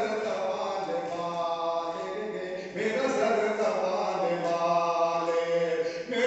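A man's voice singing verse in a melodic, chant-like recitation through a microphone and PA, holding long notes in two phrases, the second starting about three seconds in.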